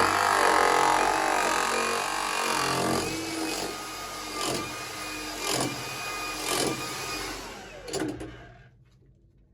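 Hilti TE-700 AVR electric demolition hammer chiselling into rock on an underground mine face, with a steady motor hum under the hammering. In the second half come sharp knocks about once a second, and the hammer stops about 8.5 seconds in.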